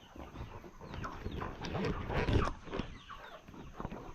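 A flock of chickens clucking and calling in many short falling notes as they are shooed into the coop, with a louder rustle of movement about halfway through.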